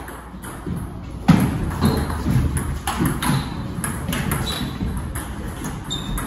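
Table tennis rally: the ball clicking off the bats and the table, a hit about every half second, starting about a second in, with the echo of a large hall.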